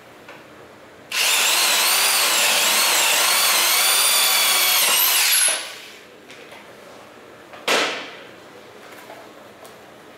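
Corded electric drill driving a 2½-inch self-drilling screw into a galvanized steel C-channel. The motor whines for about four seconds, its pitch wavering under load, then stops. A single sharp knock follows a couple of seconds later.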